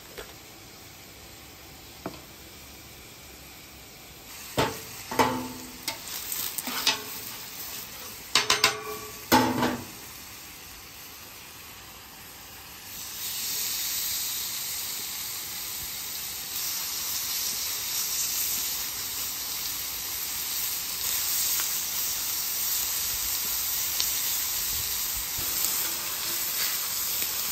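A few short knocks and clinks in the first half, then raw seasoned chicken breasts sizzling steadily on a hot flat-top griddle. The sizzle starts about halfway through as the meat goes down on the steel and grows a little as more pieces are added.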